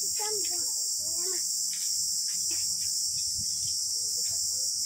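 A steady, high-pitched insect chorus that keeps up evenly throughout.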